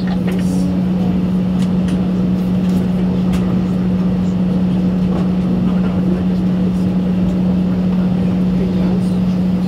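Steady drone inside an Airbus A320 passenger cabin: a constant low hum over an even rush of air, with no engine spooling up.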